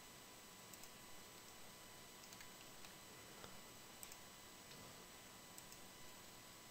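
Near silence with steady faint hiss, broken by scattered faint clicks of a computer mouse.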